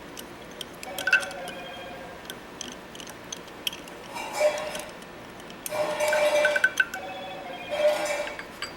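Metal tools and engine parts clinking and scraping while a bolt is worked out of an engine's cylinder head: many sharp clinks, and three longer rasping stretches in the second half, the longest about a second.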